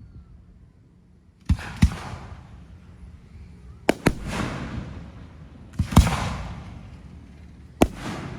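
Fireworks going off about every two seconds: four rounds, each a pair of sharp bangs a fraction of a second apart, followed by a noisy tail that fades over a second or so.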